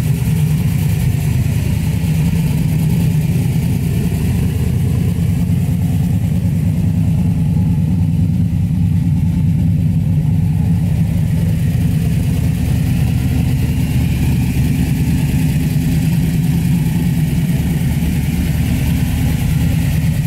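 First-generation Chevrolet Camaro SS's V8 engine idling steadily and loudly.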